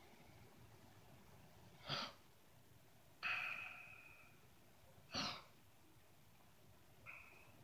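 A man's two short, sharp breaths, as if from sleep, about two and five seconds in. Between them a doorbell chime sounds once and rings on, fading over about a second, and a shorter chime comes near the end.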